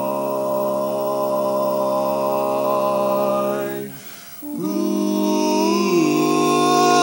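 Male barbershop quartet singing a cappella in a slow ballad: a long held four-part chord, a brief breath break about four seconds in, then another sustained chord that swells louder.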